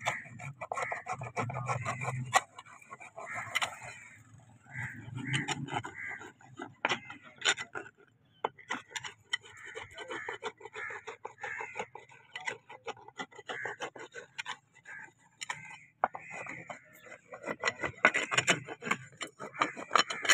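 Farrier's steel hoof rasp filing a horse's hoof wall in many short, rapid scraping strokes.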